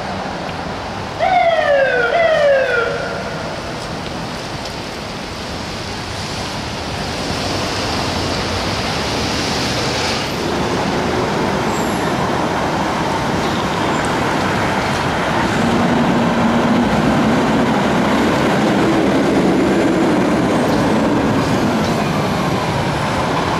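Fire engine sirens in city traffic: two quick falling siren sweeps about a second in, the loudest sounds, then steady traffic noise with a low siren tone wavering up and down in the second half.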